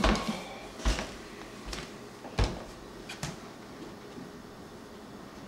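A few separate knocks and thumps in a small room, the loudest about two and a half seconds in, over a steady faint hiss.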